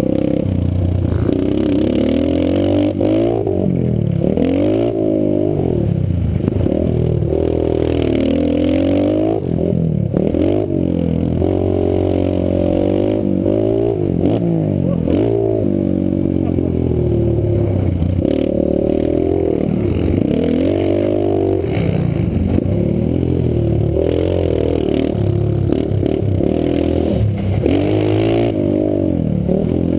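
Pit bike's small engine revving up and easing off over and over as the rider works the throttle.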